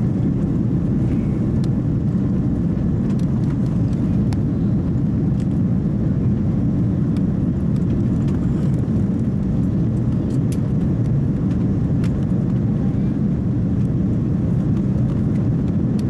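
Steady low roar of an Airbus A330-200's jet engines and rushing air, heard inside the passenger cabin while the airliner climbs after take-off, with a few faint ticks.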